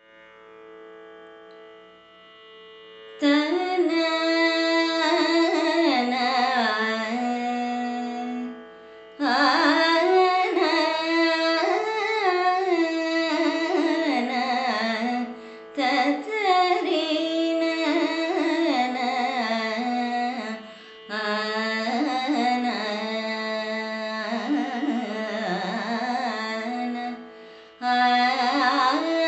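A woman sings Carnatic music in raga Dharmavati in long, sliding, ornamented phrases over a steady drone. The drone sounds alone for about the first three seconds, and the voice stops for a breath three or four times between phrases.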